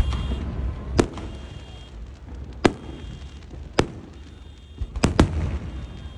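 Fireworks going off: six sharp bangs about a second apart, the last two in quick succession, over a low rumble. A high electronic beeping comes and goes in the background: a car alarm set off by the noise of the fireworks.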